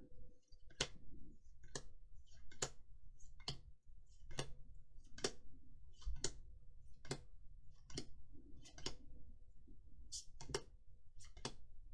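Magic: The Gathering trading cards being flicked through one at a time from an opened booster pack, a sharp card snap roughly every second, about a dozen in all with a short pause near the end.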